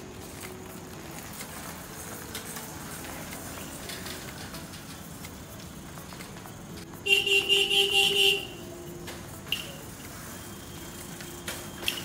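Uno Minda electric horn fitted to a bicycle, sounded once for about a second: a single loud, steady honk about seven seconds in.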